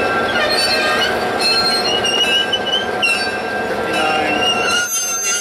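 Streamlined EMD passenger diesel locomotive creeping slowly, its engine running under a metal-on-metal squeal from the running gear: several high, wavering screeches. Near the end the low rumble suddenly falls away.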